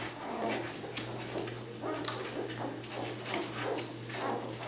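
Nine-day-old Labrador retriever puppies squeaking and grunting in short, irregular bursts as they nurse, with a steady low hum underneath.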